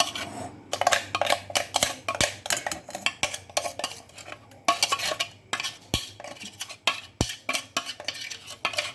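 Kitchen utensils clinking and scraping against a container: many irregular sharp taps with scraping between them, as the dry-blended ginger and spice mixture is handled.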